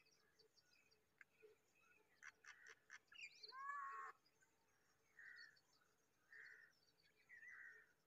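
Faint begging cheeps from naked hatchling birds in the nest: short, separate calls, with a cluster of sharp clicks and then a louder, pitch-bending call about three and a half seconds in.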